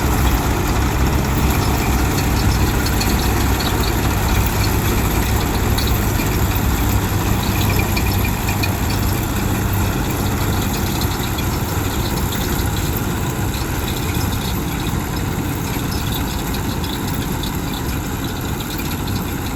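Heavy farm machine's diesel engine running steadily, a continuous low drone with a rattling hiss over it.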